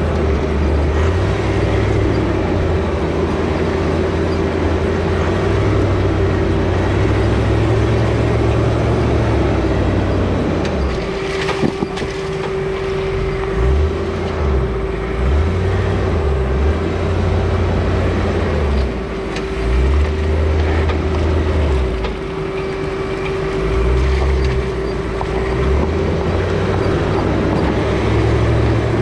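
Land Rover Discovery 2 driving slowly up a rocky dirt trail, heard from under its front bumper: the engine running low, its note rising and dipping, over a steady whine and the noise of tyres on dirt and stones. One sharp knock about twelve seconds in.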